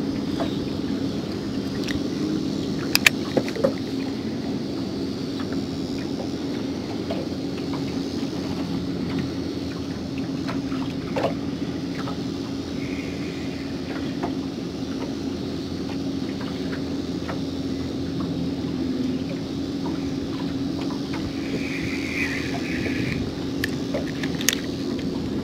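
Steady electric hum of a Minn Kota Terrova bow trolling motor holding the boat in place on SpotLock, with a few sharp clicks.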